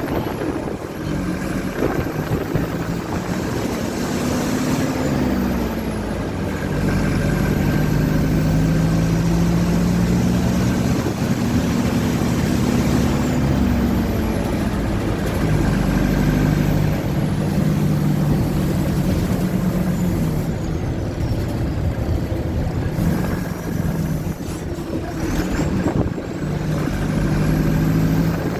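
Mercedes-Benz OF-1722M bus's front-mounted diesel engine running under way. Its note rises and falls several times as the bus pulls away and changes gear.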